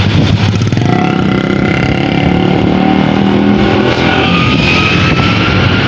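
Tour bus engine running loud under a Basuri multi-tone telolet horn, which plays a run of held notes that step up and down in pitch from about a second in.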